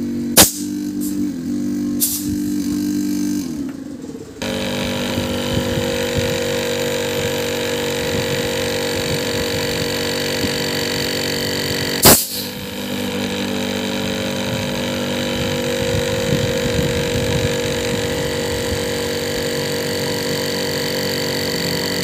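Refrigerator hermetic compressor running with a steady electric hum of several fixed tones, broken by a sharp click about half a second in and another near the middle.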